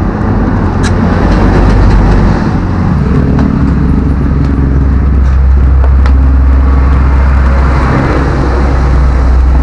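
Steady low engine rumble of nearby road traffic, with a few light clicks.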